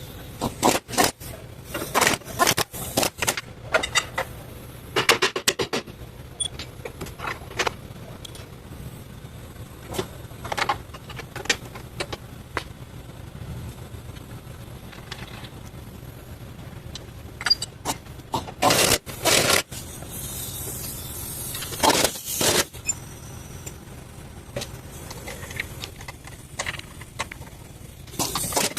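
Metal hand tools clicking, knocking and scraping on metal parts during engine mount work, in irregular clusters of sharp clicks over a steady low hum.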